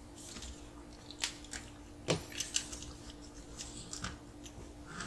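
Irregular sharp clicks and snaps of small plastic RC car parts being handled and fitted, the loudest about two seconds in, over a faint steady hum.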